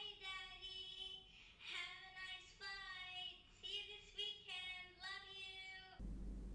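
A young child's high voice singing a string of short held notes with brief breaks between them.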